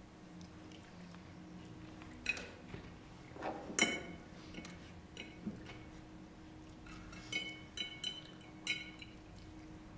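Glassware and tableware clinking on a table: scattered light clinks with a short ring. The strongest comes about four seconds in, and several fall close together near the end, over a faint steady hum.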